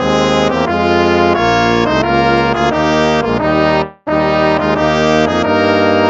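Instrumental hymn music in slow, sustained brass-like chords, breaking off briefly about four seconds in before the next phrase begins.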